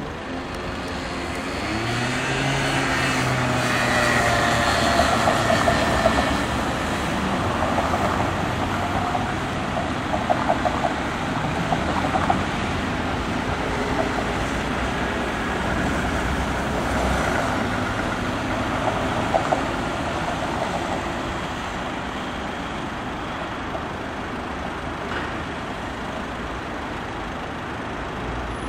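Street traffic: cars driving past close by, one speeding up with a rising engine note in the first few seconds. A few short sharp knocks come about midway.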